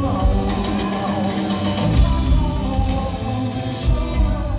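Rock band playing live: drum kit, bass guitar and electric guitar under a male lead vocal, heard from the audience.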